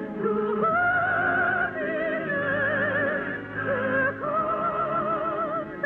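Operatic singing with orchestra: four long, high held notes with a strong vibrato over sustained accompaniment. The sound is the narrow, muffled sound of an early-1950s radio broadcast recording.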